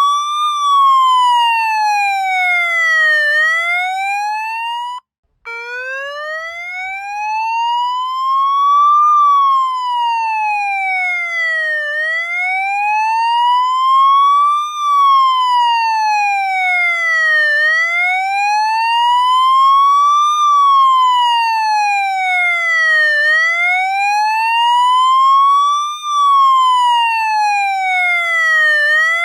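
Police siren sound effect, wailing in a slow, even rise and fall, about one up-and-down sweep every five to six seconds. About five seconds in it cuts out for a moment and comes back in at a lower pitch.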